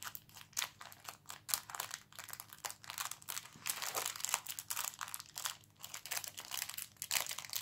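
Clear plastic packaging bag crinkling and crackling as it is handled and turned over in the hands, with many irregular sharp crackles.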